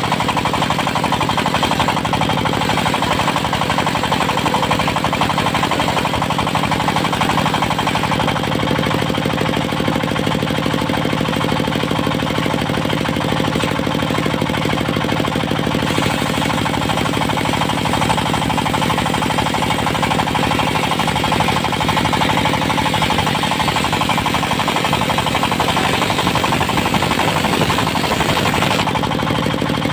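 Engine-driven portable circular sawmill running steadily, its engine beating in a fast, even chug throughout.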